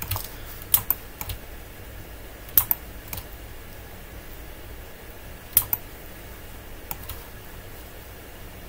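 Computer keyboard keys being tapped in short scattered runs, about ten clicks in all, several in quick pairs, with a pause of a couple of seconds in the middle.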